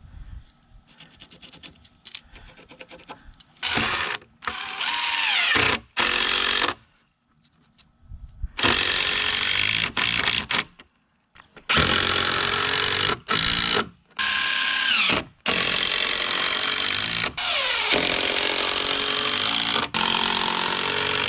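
Power drill driving construction screws into timber, in a run of short start-stop bursts, its motor pitch sliding down during several of them. Faint scattered ticks come before the first burst.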